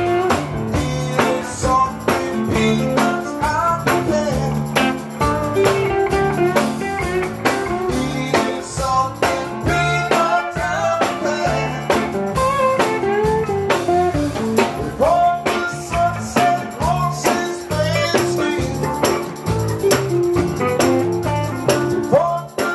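Live blues band music: electric guitar playing over a drum kit and a low bass line, with a tambourine shaken near the end.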